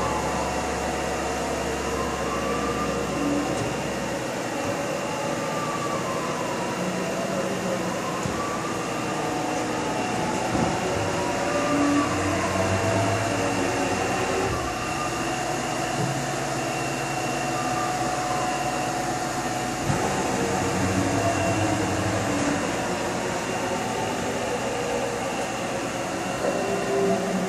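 1995 Haas VF6 vertical machining center running through a program: axis servo motors whine, rising and falling in pitch again and again as the table and head move, over a steady machine hum. Low-pitched hums switch on and off several times.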